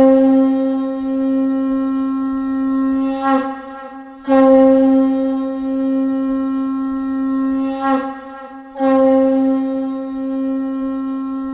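Conch shell blown in three long, steady blasts of about three and a half seconds each, each ending in a short wavering flick before a brief breath.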